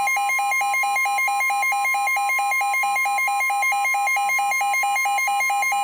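NOAA weather radio receiver sounding its warning alarm for a severe thunderstorm warning: a loud, rapid electronic beeping, about five beeps a second, over the steady 1050 Hz warning alert tone.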